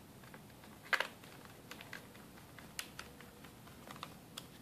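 Small screwdriver clicking and ticking against screws and the plastic base of an Asus Eee PC 1005HA netbook as the exterior retaining screws are driven back in: one sharp click about a second in, then a scatter of lighter ticks.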